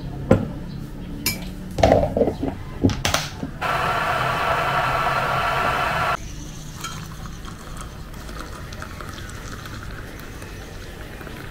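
A metal spoon clinks and knocks against a glass mug several times. Then a stainless gooseneck electric kettle heating water gives a steady rushing sound for about two and a half seconds, cut off suddenly. Near the end hot water is poured from the kettle into the glass mug, with a faint rising tone as it fills.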